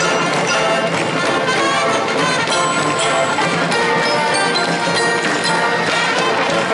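High school marching band playing: a full brass section with percussion, loud and steady throughout.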